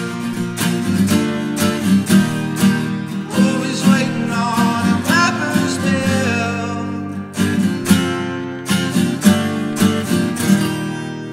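Acoustic guitar strummed in a steady rhythm, with a man singing over it in the middle. Near the end the strumming stops and the last chord rings out and fades.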